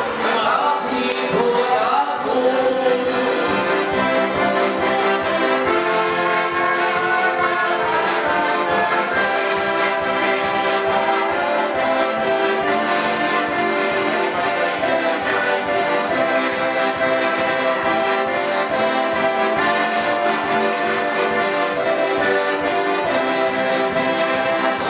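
A small live band playing a dance tune: accordion leading over electronic keyboard and acoustic guitar, with a steady, even beat.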